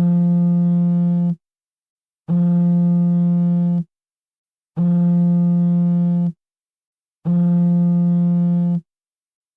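A mobile phone's vibration buzz, a low steady hum sounding in four pulses of about a second and a half each, with a gap of about a second between them, as for an incoming call.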